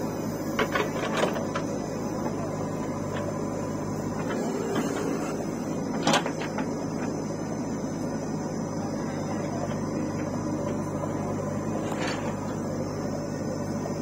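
JCB 3DX backhoe loader's diesel engine running steadily as the backhoe digs and swings, with several sharp knocks from the arm and bucket, the loudest about six seconds in.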